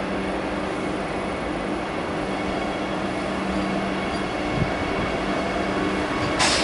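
Vande Bharat Express electric trainset passing close by: a steady rumble of wheels on rail with a steady electric hum. There is a single low knock about four and a half seconds in and a short hiss near the end.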